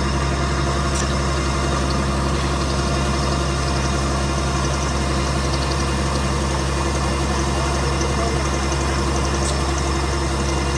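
Combine harvester engine running steadily at a constant speed.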